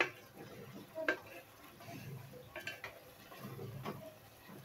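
A spoon stirring a thick tomato-based chicken and potato curry in a metal pot, with about four sharp clinks of the spoon against the pot over a soft stirring sound.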